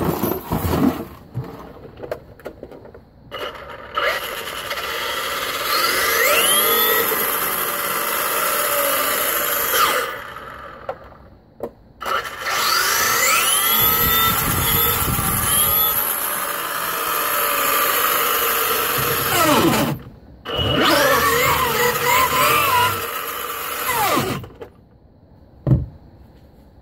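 Brushless electric motor and drivetrain of a Traxxas Rustler RC truck revving with the wheels spinning free off the ground: three long bursts of whine that climbs and falls in pitch with the throttle.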